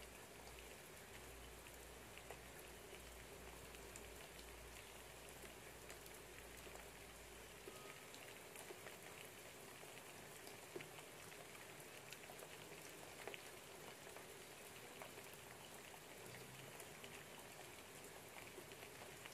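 Light rain falling outside a window: a faint, steady patter with scattered drips. A low hum underneath stops about eight seconds in.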